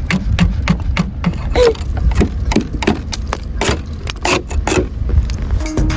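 Wind rumbling on the microphone in a snowstorm, with irregular crackles and knocks; music comes in near the end.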